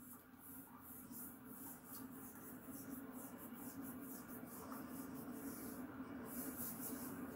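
Single-serve pod coffee maker brewing: a steady low hum that grows slightly louder, with faint irregular rustling above it.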